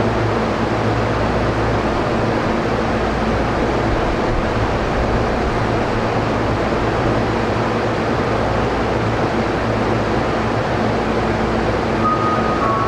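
Steady rumble and hiss inside a Toei 10-300 series subway car, with a low hum under it. A few short chime notes start near the end.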